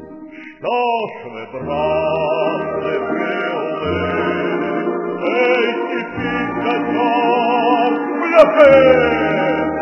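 Russian folk ballad sung by male voices in a choir-like group, with a loud note that slides down in pitch about eight and a half seconds in.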